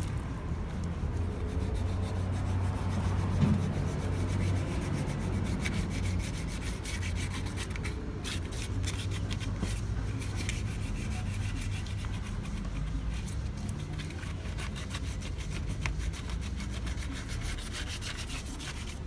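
Hand wet-sanding of an aluminum wheel rim with 240-grit sandpaper and water: continuous scratchy rubbing strokes that smooth the surface so the paint will stick. A steady low hum runs underneath.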